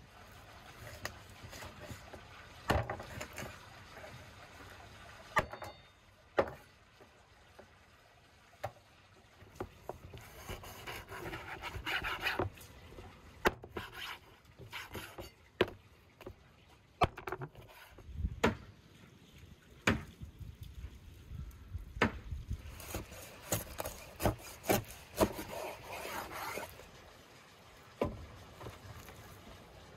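A meat cleaver chopping lamb on a wooden cutting board: irregular sharp knocks of the blade striking the board, with stretches of scraping and rubbing as the blade works through the meat.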